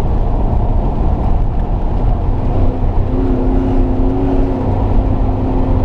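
Rally car driving at speed, heard from inside the cabin: steady engine and road noise. About two seconds in, a steady droning engine note sets in and holds at constant revs.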